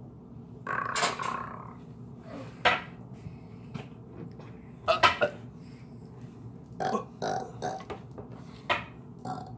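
A man burping repeatedly: one longer burp about a second in, then short single burps a couple of seconds apart, coming quicker near the end, kind of musical.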